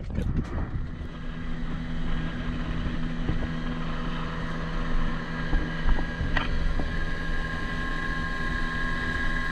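Outboard motor of a small open boat running steadily under way, over a rush of water and wind.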